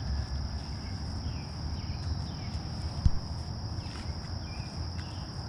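Insects chirring steadily in one high, even pitch over a low rumble, with a single sharp thump about three seconds in.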